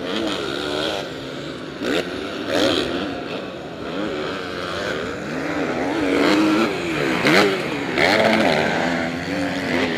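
Several MX1-class motocross bikes racing at once, their engines revving up and dropping off again and again as the riders work the throttle around the track.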